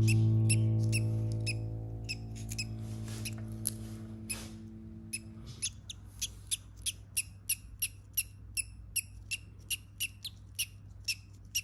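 Parrot chick peeping in short, high squeaks, repeated about three times a second, over background music that fades away in the first half.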